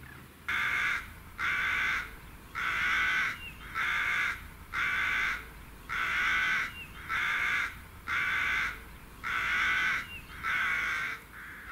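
A crow cawing in a long, even series, about ten caws at roughly one a second.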